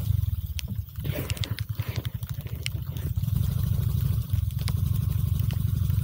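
Suzuki Burgman Street 125 scooter's single-cylinder engine running at low revs with an even low throb, with scattered sharp ticks over it.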